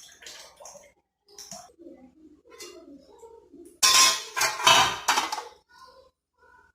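Kitchen utensils clinking and knocking against metal cookware, with a louder burst of clattering about four seconds in.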